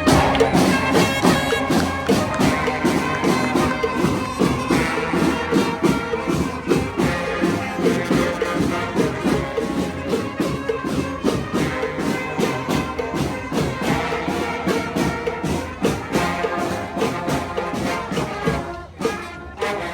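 Street band of brass horns and drums playing a song over a steady, driving beat.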